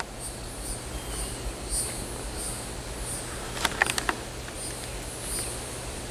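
Insects chirping in a steady, high, repeating pulse, about two to three chirps a second. A few sharp clicks come close together a little past the middle.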